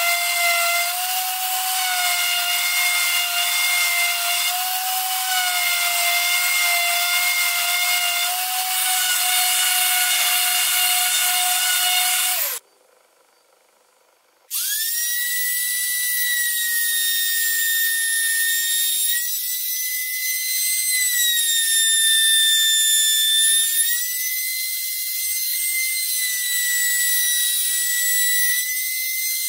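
Random orbital sander running against the edge of a hornbeam cutting board with a steady whine, then winding down about twelve seconds in. After a short near silence, a compact trim router with a chamfer bit spins up to a higher-pitched whine and runs steadily, its pitch wavering slightly as it cuts the board's edge.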